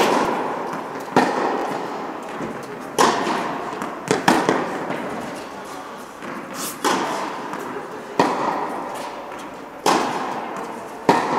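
Tennis ball being struck by rackets and bouncing on the court in a rally: about eight sharp pops a second or two apart, each echoing in a large indoor hall.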